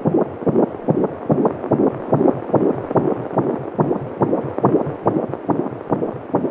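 Fetal heartbeat heard through a Doppler monitor: a fast, even whooshing pulse of a little over two beats a second.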